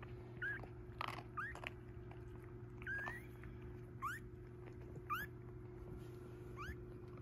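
Newborn Cavalier King Charles Spaniel puppies squeaking while they nurse: short, high squeaks that rise in pitch, about one every second, over a steady low hum.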